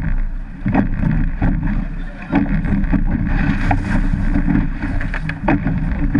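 A surf boat is rowed through breaking surf, with wind buffeting the boat-mounted microphone over the rush of water and irregular slaps and knocks on the hull. About three and a half seconds in, a wave breaks over the side with a hissing splash of spray.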